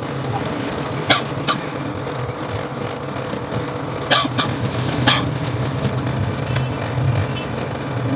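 Belt-driven coil-winding machine running with a steady hum as it winds copper wire onto a transformer bobbin. A few sharp clicks come about a second in and twice more around four to five seconds in.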